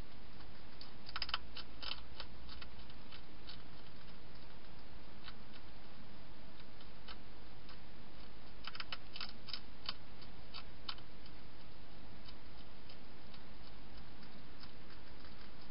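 Hedgehog chewing dry food: irregular crisp crunching clicks, in a run about a second in and another around nine seconds in, with scattered single clicks between, over a steady hiss.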